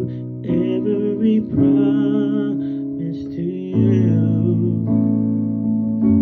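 A man singing into a microphone over sustained instrumental chords that change every second or two.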